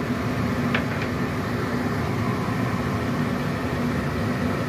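A gas stove burner running under a wok of simmering broth: a steady low rumble with a faint hum. Two faint clicks come about a second in.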